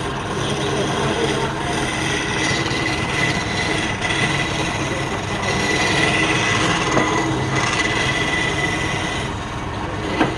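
Wood lathe running: a steady, dense mechanical noise with a constant high whine throughout.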